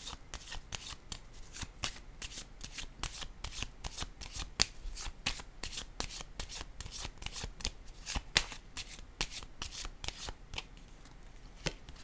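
A deck of tarot cards being shuffled by hand: a quick, irregular run of soft card clicks and snaps that stops shortly before the end, with one last click near the end.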